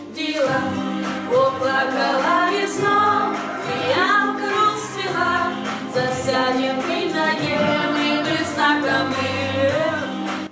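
A woman singing a song over steady instrumental accompaniment, her voice holding and gliding between notes.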